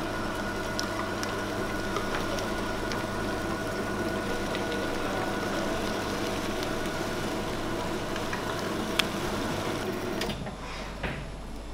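Electric meat grinder running steadily as it grinds meat, a constant motor hum with a grinding texture. There is a single sharp click about nine seconds in, and the running sound drops away shortly after.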